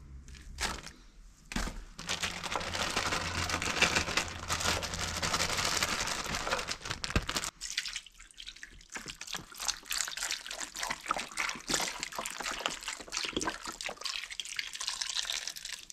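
Beef broth being poured into a crock pot of meat and vegetables, after a couple of light knocks. The pour runs steadily from about two seconds in to about seven and a half, then continues as an uneven, broken stream with many small splashes.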